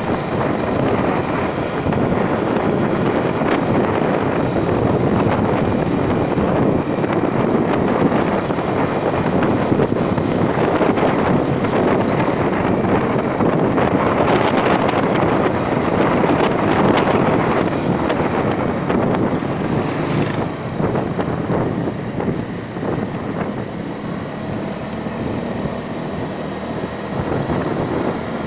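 Wind buffeting the microphone over the steady running of a vehicle on the move. It eases a little toward the end, with one brief click about two-thirds of the way through.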